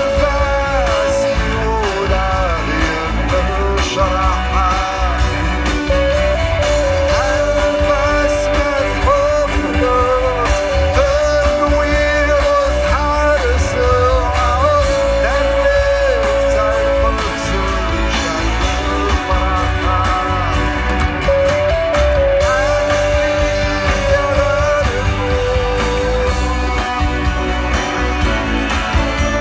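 Live Kabyle rock band music with singing and guitar, with a long-held melody line over a steady bass.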